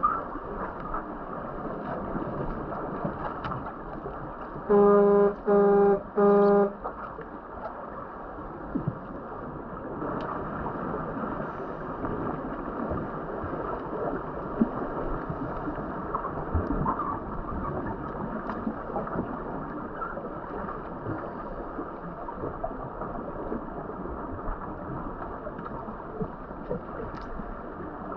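Underwater pool noise of bubbling and crackling water from the players and divers, broken about five seconds in by three short, loud blasts of an underwater horn, a referee's signal in underwater rugby.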